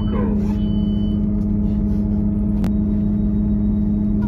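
Steady drone of a Class 158 diesel multiple unit heard from inside the carriage, from its underfloor diesel engine and running gear. There is one sharp click about two and a half seconds in.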